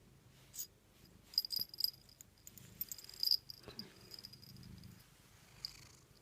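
Pet cat purring softly close to the microphone, with small clicks and rustles of movement in the middle of the stretch.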